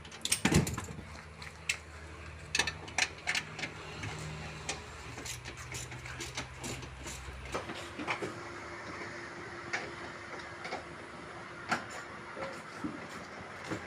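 Scattered clicks and knocks of hands and tools working on a car's dashboard parts and AC cooling coil, the loudest a cluster just under a second in. Under them runs a steady low hum, which changes to a higher steady hum about halfway through.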